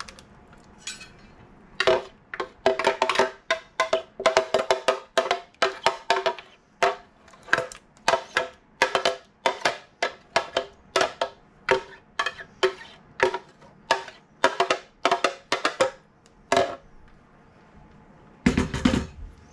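A utensil knocking and scraping repeatedly against a container while pureed soup is emptied from the blender back into the pot. The sharp, ringing taps come in quick, irregular runs from about two seconds in, pause, and return louder near the end.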